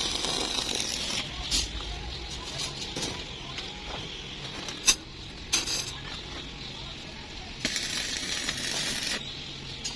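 Stick arc welding on steel rebar: the arc crackles and hisses for about the first second and again for a second and a half near the end. In between come a few sharp metallic clinks.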